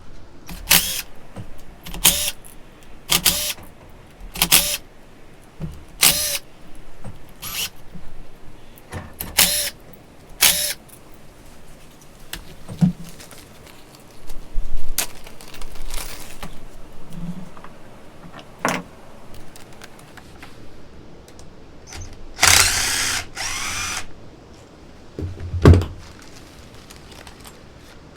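A power driver run in short bursts, about nine in quick succession, backing out the stator cover bolts of a Raptor 250 ATV engine. Later comes one longer run of about a second and a half, then a single knock.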